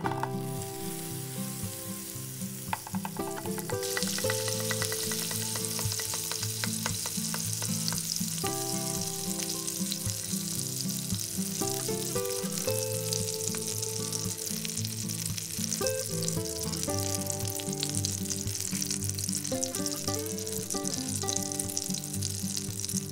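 Butter sizzling and crackling in a nonstick frying pan as a toasted egg-and-cheese sandwich fries in it; the sizzle gets much louder about four seconds in and then holds steady. Background music plays underneath.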